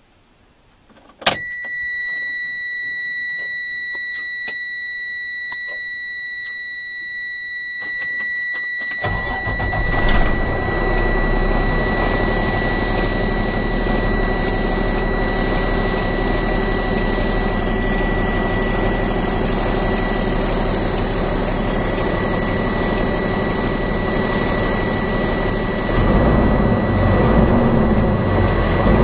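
Freightliner M2 106 truck's diesel engine started from the cab: a click about a second in brings on a steady high warning buzzer with the BRAKE AIR warning lit, which is the low air pressure alarm. About nine seconds in the engine starts and idles under the continuous buzzer, and its speed rises to about 1000 rpm near the end.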